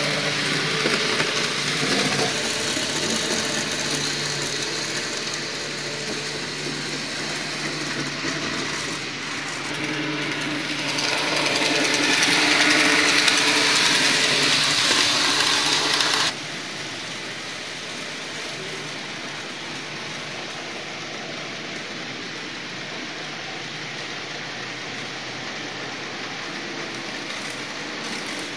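N-scale model trains running: a steady whir of small electric motors and wheels on the track. It grows louder for a few seconds midway, then drops suddenly about sixteen seconds in.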